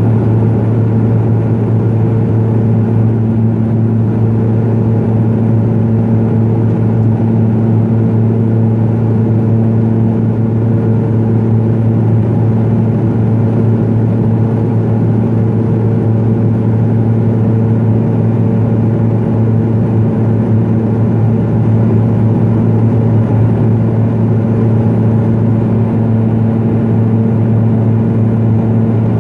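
Pilatus PC-12's single Pratt & Whitney PT6A turboprop engine and propeller in flight, heard inside the cabin: a loud, steady drone with a deep propeller hum and a higher steady tone above it, unchanging throughout.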